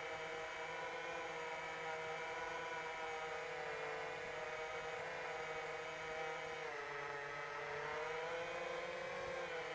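Whine of an iFlight Chimera7 Pro FPV quadcopter's brushless motors and propellers heard from on board, steady in pitch. Near the end the pitch sags briefly and then climbs back as the throttle is eased and raised again.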